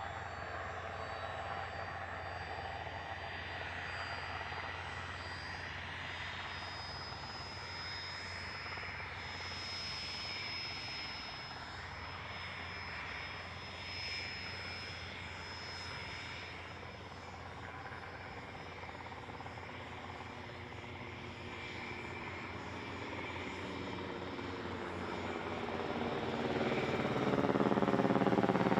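Aircraft engine noise at an airfield: a steady drone with a thin high whine that rises slightly about a third of the way in, then fades. Near the end it grows louder as the aircraft comes closer.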